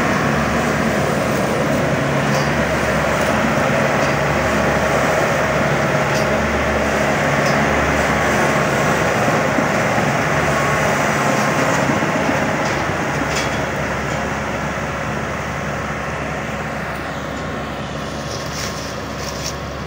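Tracked rice combine harvester's diesel engine running steadily as the machine crawls through mud on its rubber tracks, growing quieter over the last several seconds as it moves off.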